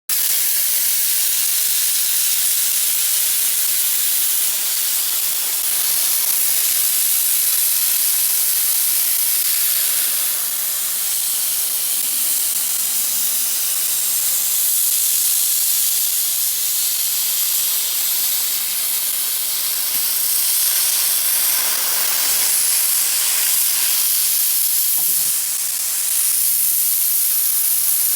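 Crossfire CNC plasma cutter cutting steel plate: a loud, steady hiss from the plasma arc and air jet, with small swells and dips in level as the torch moves along the cut.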